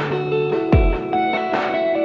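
Background music: a song's instrumental intro with guitar over a drum beat, with a deep kick-drum thump.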